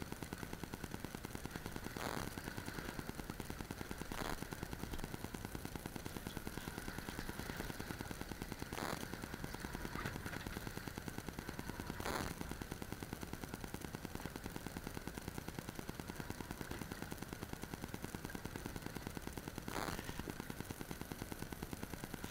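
Boat engine idling with a steady, rapid, even pulse, and a few short louder knocks about 2, 4, 9, 12 and 20 seconds in.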